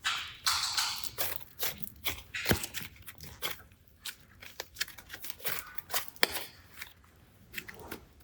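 Slime being handled and pressed, giving irregular crackles, clicks and short squishy bursts.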